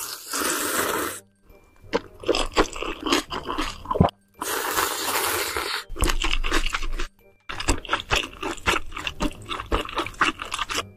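Close-miked slurping and chewing of spicy instant noodles: long noisy slurps, at the start and again from about four seconds in, alternating with runs of quick wet chewing clicks.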